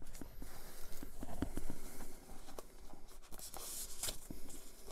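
Hands handling a Blu-ray mediabook's packaging: light scratching and rustling with scattered small clicks.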